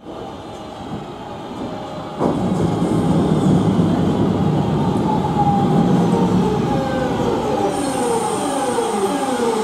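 Class 323 electric multiple unit running into the platform, its wheels and running gear noise growing louder about two seconds in. In the last few seconds its traction motors whine in several falling tones as it slows.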